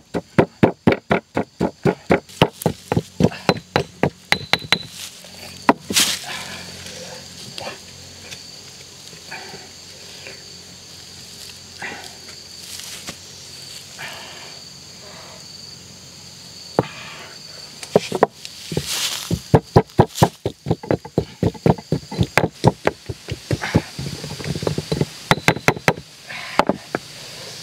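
Pestle pounding in a stone mortar: quick, even knocks, about three a second, for the first five seconds. Then a pause with a few scattered knocks and clatters, and steady pounding again from about two-thirds of the way through. Insects buzz steadily in the background.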